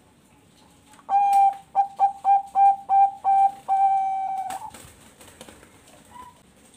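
Zebra dove (Bangkok-bred perkutut) singing: a longer opening coo, a quick run of about seven short clipped notes, then one long held note, all on the same clear pitch. A faint single note follows near the end.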